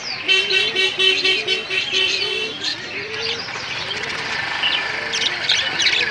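Many caged birds chirping and twittering at once, overlapping busily, with a low wavering cooing recurring underneath.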